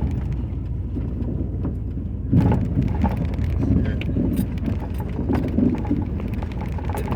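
Car driving on a snow-covered road, heard from inside the cabin: a steady low engine and road rumble, with irregular ticks from about two seconds in.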